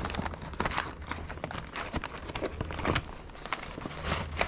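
Paper rustling and crinkling as old printed brochures and guides are handled and leafed through, with many irregular sharp crackles.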